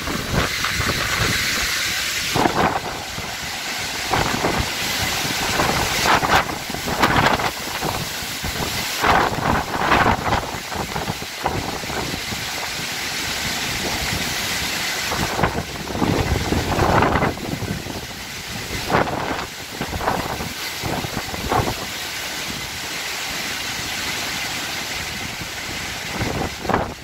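Strong storm wind gusting, a rushing hiss that swells every few seconds.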